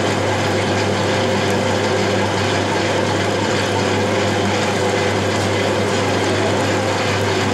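Metal-turning lathe running steadily with its chuck and workpiece spinning: an even machine hum under a broad hiss.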